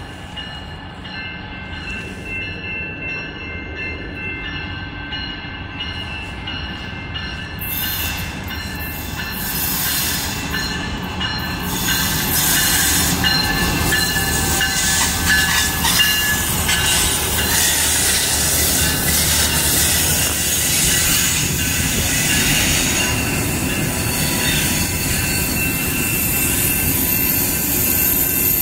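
Amtrak Hiawatha passenger train, led by a Siemens SC-44 Charger diesel-electric locomotive, approaching and passing. It grows steadily louder for about twelve seconds with a thin high wheel squeal on the curve, then the locomotive and passenger cars roll by in a steady loud rumble.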